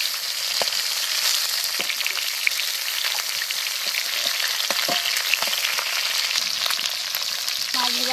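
Rohu fish pieces frying in hot oil in a metal wok: a steady sizzle with scattered spitting pops. A metal spatula scrapes the wok as it turns the pieces.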